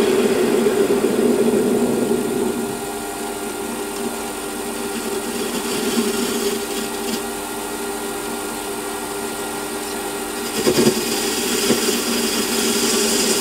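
Small metal lathe running steadily, its tool taking light facing cuts of about 5 thou across a small cylinder end cap. There is a short clatter about ten and a half seconds in, and after it a higher hiss joins the machine's hum.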